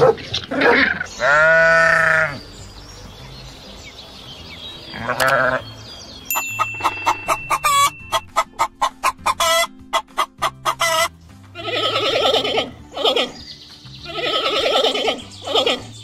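Farm animal calls: a puppy's short yips and a long drawn-out call in the first couple of seconds, then a hen clucking in a fast run of sharp clucks, and louder, harsher cackles near the end.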